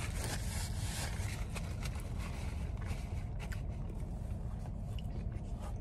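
Steady low rumble inside a car cabin, with faint scattered clicks and scrapes.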